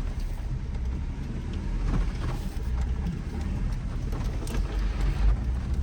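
2007 Jeep Wrangler JK driving, heard from inside: a steady low engine and drivetrain rumble with road noise, and a few faint knocks and rattles.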